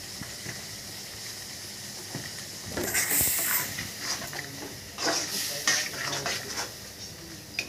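Masala paste sizzling in a metal kadhai with a steady hiss. About three seconds in, a metal spatula starts stirring it, scraping against the pan in repeated irregular strokes.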